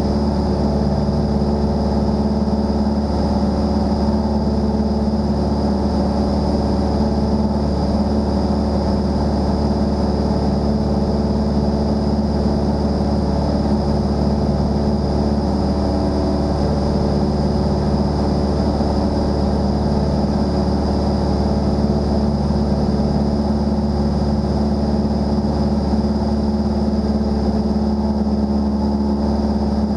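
Single-engine propeller airplane's engine and propeller droning steadily in level flight, heard from inside the cockpit. The pitch and loudness hold constant.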